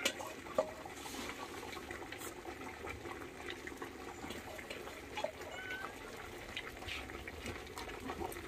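Meat stew simmering in an aluminium pot over a wood fire: a steady low bubbling hiss with faint crackles. A few faint short high squeaks come through now and then.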